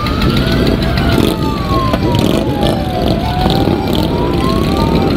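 A siren wailing slowly up and down, about two seconds rising and two seconds falling, over the steady rumble of motorcycle engines.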